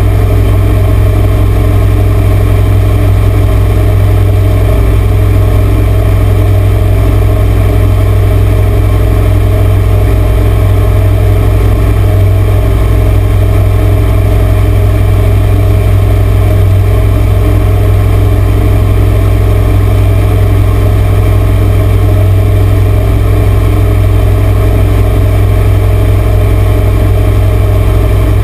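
Four Winns 21 cuddy cabin boat's engine running steadily at towing speed while pulling a wakeboarder, a loud, even drone with a heavy low rumble, mixed with the rush of the wake behind the boat.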